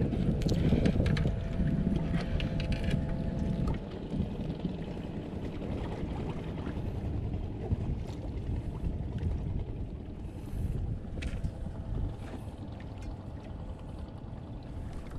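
Wind buffeting the microphone over water noise on a small fishing boat at sea. It is louder in the first few seconds, with a few light clicks and knocks, then settles to a steadier, quieter rush.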